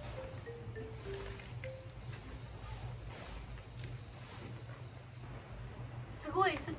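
Insects chirring steadily, crickets by the sound: a constant high trill with a softer chirp pulsing a few times a second beneath it. A few faint notes of background music sound in the first second or so, and a voice starts just before the end.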